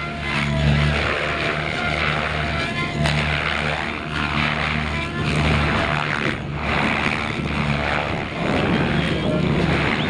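Electric RC helicopter (Minicopter Diabolo) flying aerobatics: its rotor blades whoosh in surges as it swoops and flips, under a low hum and the electric motor's whine gliding up and down. Wind noise on the microphone.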